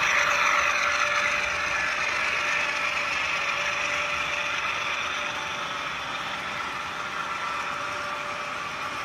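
HO scale model freight train rolling past on the track, a steady mechanical hum and rolling noise that slowly fades as the locomotive pulls away.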